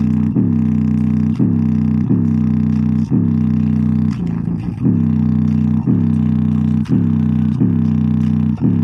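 JBL Charge 4 portable Bluetooth speaker playing a hip-hop bass line loud, its passive radiator visibly pumping. Deep bass notes are struck about once a second, each dipping slightly in pitch as it starts, with no vocals.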